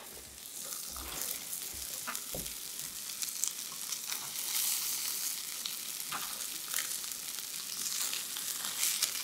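Pork-wrapped rice balls sizzling in an oiled frying pan, just uncovered after steam-frying. There are a few light knocks and clicks as a spoon turns them.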